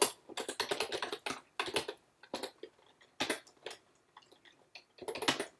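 Typing on a computer keyboard: a quick run of keystrokes for about two seconds, then scattered single key clicks, then a short flurry of keys near the end.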